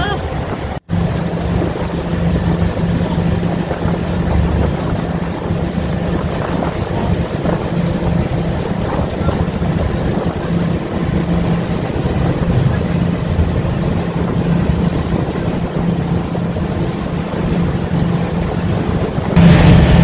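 A ferry's engines running with a steady low drone, mixed with wind rush, getting louder near the end.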